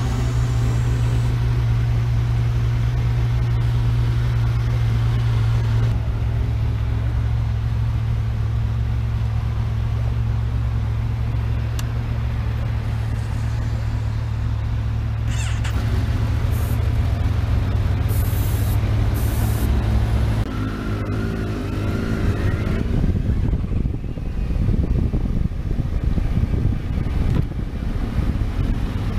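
Kawasaki Versys 1000's inline-four engine idling steadily, with other motorcycles running close by. About 21 seconds in its revs rise briefly and it pulls away, and the engine note becomes mixed with wind noise.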